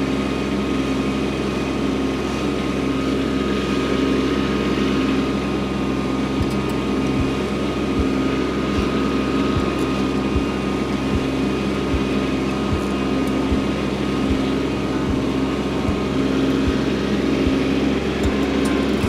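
Kubota B2601 compact tractor's three-cylinder diesel engine running steadily as the tractor drives along, dragging a landscape rake set down at full weight through snow and ice on gravel.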